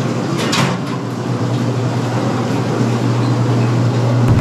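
Steady machinery hum. About half a second in there is a brief scrape, and near the end a low wooden rumble as a wooden tray is slid into a slatted wooden drying rack.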